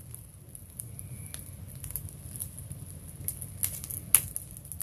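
Wood bonfire burning, crackling with scattered sharp pops, the loudest a little before the end, over a low steady rumble.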